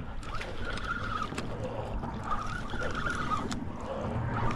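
A steady low motor hum, like a boat engine running, with a wavering higher whine over it and a few light clicks.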